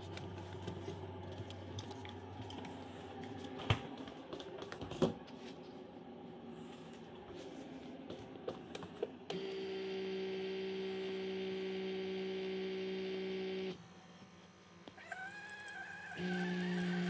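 Kitchen handling sounds with a couple of sharp clicks, then a steady machine hum that breaks off briefly and comes back near the end as a Keurig single-serve coffee maker brews into a mug.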